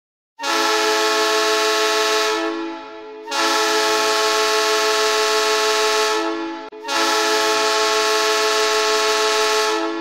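Greenville Swamp Rabbits ice hockey goal horn sounding three long blasts with short gaps between them, a loud steady horn tone with many overtones.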